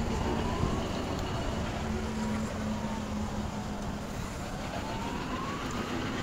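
Outdoor traffic background with a steady low hum and a distant siren wailing, its pitch slowly rising and falling.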